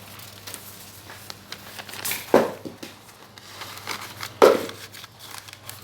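Plastic crinkling and handling noises with two sharp knocks, one about two and a half seconds in and one about four and a half seconds in, over a steady low hum.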